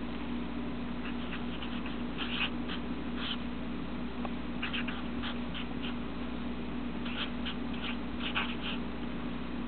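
Felt-tip marker writing on paper: short, high-pitched scratchy strokes in clusters as letters are drawn, over a steady low hum.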